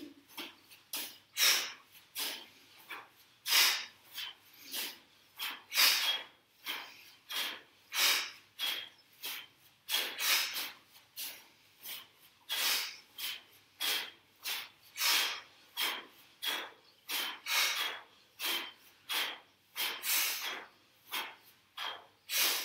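Sharp, forceful exhalations from two people doing kettlebell swings, one breath per swing. The two swingers are out of step, so the short hissing breaths come irregularly, about one to two a second.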